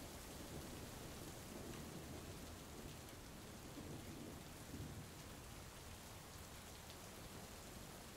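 Faint steady rain, with a low rumble of distant thunder about halfway through.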